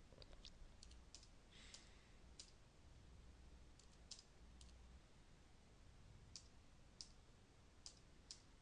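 Faint computer keyboard keystrokes: about a dozen single key taps, spaced unevenly from a few tenths of a second to over a second apart.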